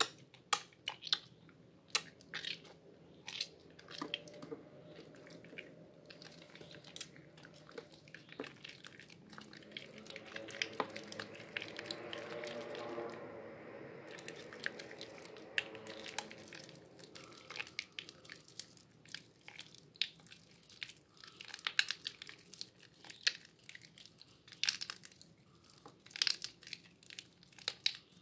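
A water-soaked bar of white soap being squeezed and crushed in wet hands, crumbling into mushy lumps with a run of crisp crackles and crunches. The crunching grows denser and louder for several seconds in the middle.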